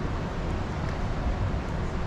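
Steady low rumble of wind on the microphone and rushing water from the dam's outflow, with no distinct events.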